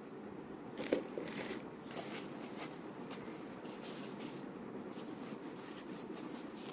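Faint eating sounds during a mukbang: a few soft clicks and taps about one to two and a half seconds in, over a low steady room hiss.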